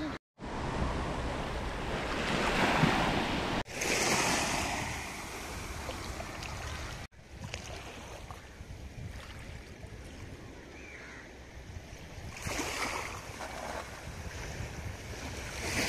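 Small sea waves washing on the shore with wind buffeting the microphone, a steady wash of noise that swells now and then and cuts off abruptly a few times.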